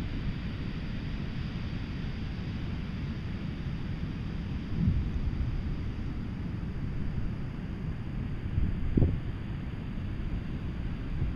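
Wind buffeting the microphone: a steady low rumble that swells in gusts about 5 and 9 seconds in.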